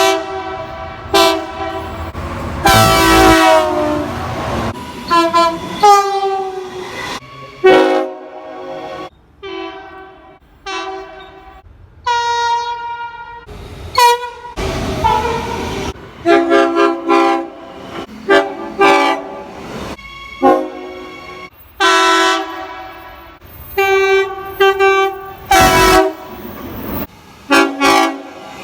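Train air horns blowing a rapid series of short and longer blasts, each blast several tones sounding together. The horns change abruptly from one clip to the next, with bursts of rushing noise in between.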